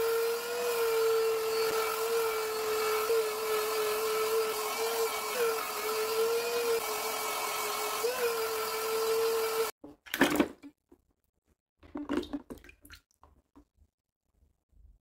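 A high-speed electric power tool runs with a steady high whine over a hiss, its pitch dipping briefly about three times as it is loaded. It cuts off abruptly; a few clicks and knocks follow.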